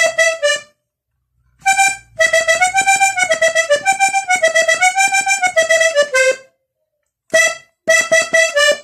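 Three-row diatonic button accordion (vallenato accordion) playing a fast run of melody notes on the treble buttons. It breaks off into brief silences about a second in and again a little past six seconds, with a short burst of notes before it resumes.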